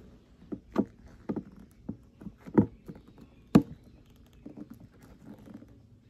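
Irregular knocks and thumps from handling a wooden Layens horizontal beehive, its parts being knocked and shifted as it is opened. The loudest two come about two and a half and three and a half seconds in.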